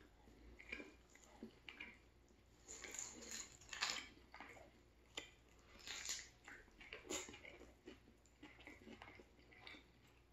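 Mouth sounds of a man eating a turkey sandwich on a crusty roll: chewing and biting, with irregular sharp clicks and crackles, the loudest about four seconds in and again around six and seven seconds.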